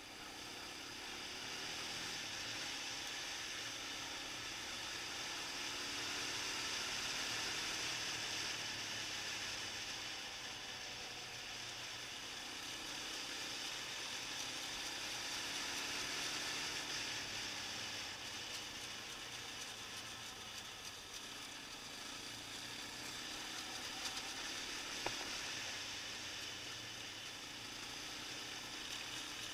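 Wind rushing over the microphone of a camera on a moving quad bike: a steady hiss that covers most of the sound. A faint ATV engine runs beneath it, rising and falling in pitch.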